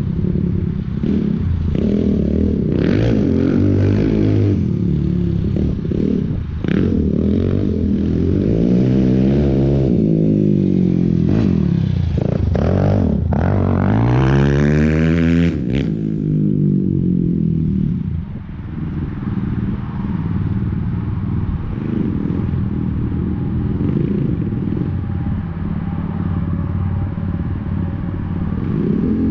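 Off-road vehicle engine running with the throttle worked on and off, its pitch climbing and falling again and again. The longest, highest rev builds about twelve seconds in and cuts off sharply around the middle. After that it runs steadier and lower.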